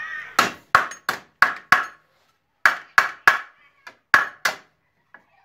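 Hammer striking the steel drum of a Rapid walk-behind mower to knock loose a drum that will not come off: about ten sharp, ringing metallic blows in three quick runs.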